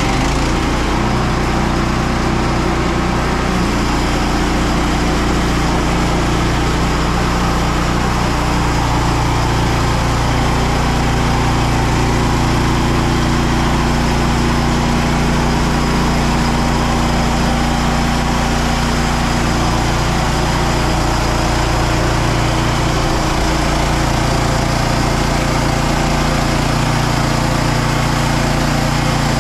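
Frontier OS27 portable bandsaw mill running steadily, its small engine driving the band blade through an ash log.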